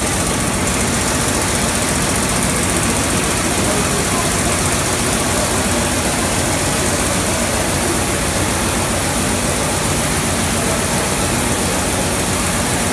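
Steady machinery noise in a Comté cheese dairy's vat room, where motor-driven stirring arms turn the milk in large copper vats. The noise is loud and even, with no breaks.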